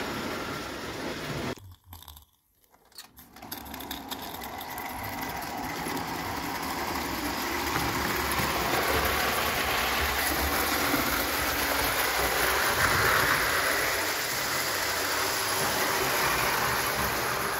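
Märklin live-steam 0 gauge locomotive and its tinplate coaches rolling along tinplate track, a steady rumble and rattle with hiss. The sound almost drops out briefly about two seconds in, then builds back and is louder from about eight seconds on.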